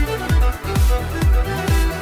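Background music: an electronic dance track with a steady kick drum, about two beats a second, under held synth notes.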